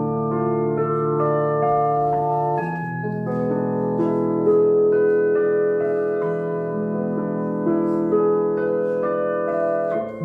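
Slow, calm instrumental music of held, overlapping piano-like notes that change every second or so.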